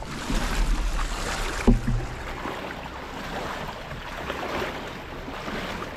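Steady rush of river water and wind around a small boat, with a low rumble at first and a single knock a little under two seconds in.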